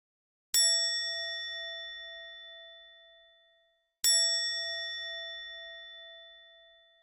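A bell-like metallic ding sound effect, struck twice, about 3.5 seconds apart. Each strike rings out and fades slowly, with a slight wavering in its lowest tone.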